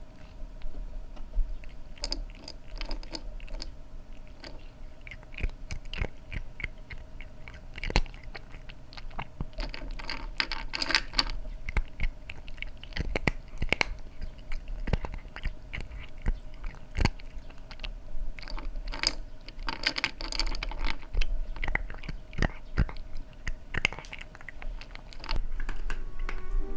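Domestic cat crunching dry kibble, with irregular crisp crunches that come in quick clusters between short pauses.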